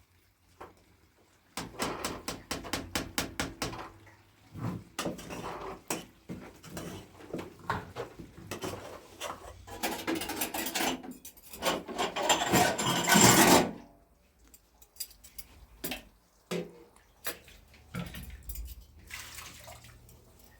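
Clattering and rattling of small hard objects: runs of quick clicks and knocks, with a louder dense clatter about two-thirds of the way through, then scattered knocks.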